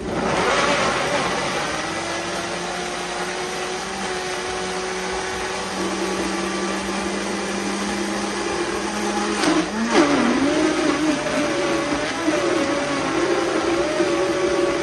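Countertop blender motor running at high speed, puréeing tomatoes, onion, ginger and garlic with no water added. Its pitch dips sharply about ten seconds in and climbs back, then wavers as the thick purée churns.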